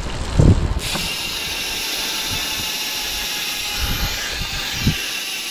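Ztto P3 freewheel rear hub buzzing loudly while the bike coasts downhill, a steady high-pitched ratchet hiss that starts suddenly about a second in, with low thumps from the bike hitting bumps.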